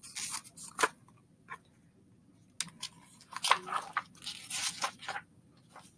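Book pages rustling and crinkling as they are handled and flipped, in irregular short bursts with brief pauses.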